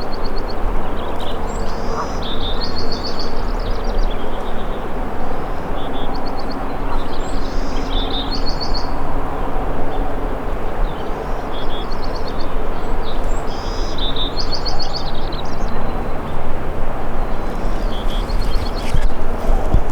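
Small birds singing short repeated phrases, a new phrase every few seconds, over a steady low rumble.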